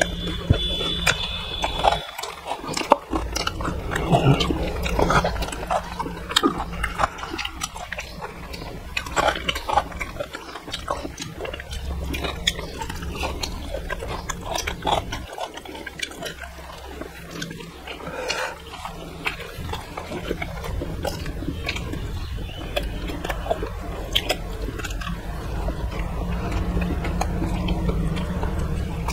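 Close-miked eating by hand: wet chewing and lip-smacking, with frequent short sharp clicks and crunches of crisp pani puri shells and soft food being eaten. A steady low hum sits underneath.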